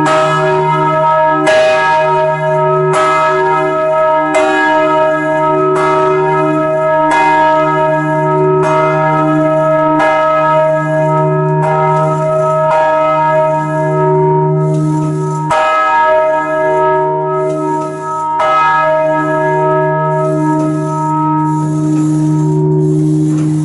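Large bronze church bells of Stockholm Cathedral ringing, heard up close inside the bell tower. There is a strike about every one and a half seconds, and each one rings on under the next, so the bells blend into a continuous loud clang over a deep steady hum.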